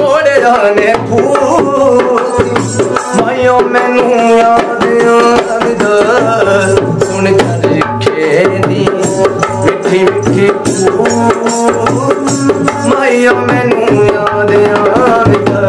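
Ravanahatha, a Rajasthani bowed folk fiddle, playing a wavering melody, with the small bells on its bow jingling in a steady rhythm.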